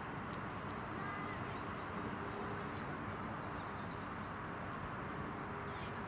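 Steady outdoor background noise with no clear source, and a few faint bird chirps near the end.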